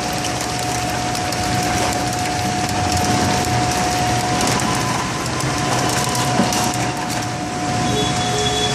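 Packing-line conveyors running, with a dense, continuous clatter of small tomatoes tumbling off a belt into a stainless-steel hopper over a steady machine whine. Near the end, different line machinery with a couple of new steady tones takes over.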